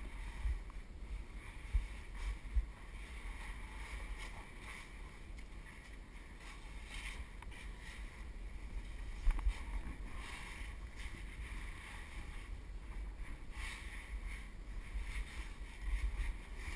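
Muffled rumbling and scraping as a body-mounted camera and the climber's gear rub against sandstone walls while squeezing through a tight slot canyon, with a few sharp knocks, one about nine seconds in.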